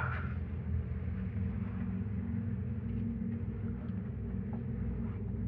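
A steady low rumbling hum made of several held low tones, with a few faint clicks.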